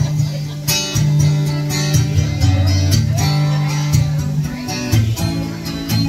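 Solo acoustic guitar playing a song's instrumental intro, strumming chords in a steady rhythm over ringing low notes.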